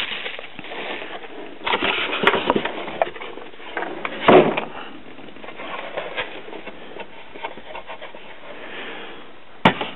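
Handling noise of packing being cleared away: plastic bubble wrap rustling and scraping, with a few knocks on a wooden workbench, the loudest about four seconds in.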